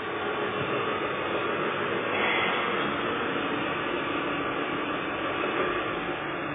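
1/14 scale radio-controlled truck and wheel loader driving, giving a steady mechanical running noise.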